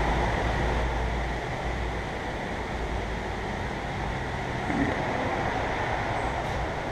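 Steady workshop background noise, an even rushing hiss with a low rumble in the first second or so. There is a faint knock about five seconds in.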